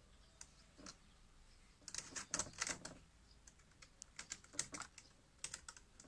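Cat's claws scratching and catching on a mesh insect screen: irregular runs of quick light clicks and scrapes, thickest about two to three seconds in and again around four to five seconds in.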